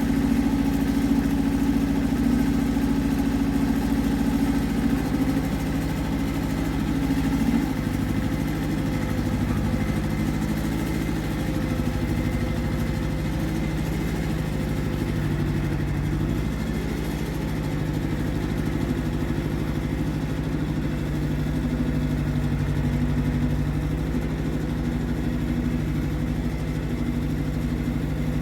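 Iseki TX1300 compact tractor's diesel engine running steadily while ploughing, its note shifting slightly a few times.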